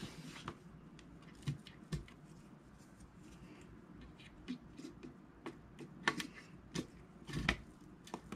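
Scattered light clicks and taps of plastic and metal as DDR4 RAM sticks are handled and pressed into a motherboard's memory slots, the strongest taps about six and seven and a half seconds in.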